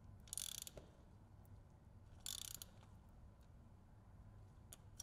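Ratchet wrench clicking faintly in two short bursts of about half a second each, as it tightens a new oil filter the extra three-quarter turn past gasket contact.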